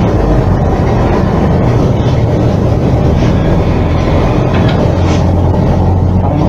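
Brazing torch flame burning steadily as copper air-con tubing is brazed, a dense low rushing noise with a steady low hum underneath.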